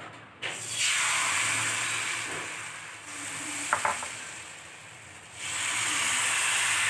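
Fermented rice appam batter sizzling as it hits a hot, oiled iron kadai. It starts about half a second in and fades, with a brief sharp sound near the middle. It sizzles loudly again from about five and a half seconds, as the pan is swirled and the batter spreads onto the hot sides.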